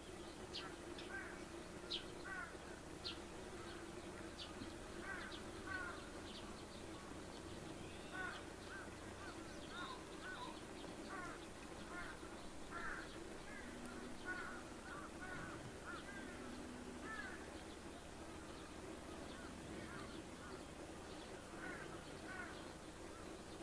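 Birds calling from the wooded riverbank: many short, quick chirping notes, coming in clusters. Beneath them runs a steady faint low hum.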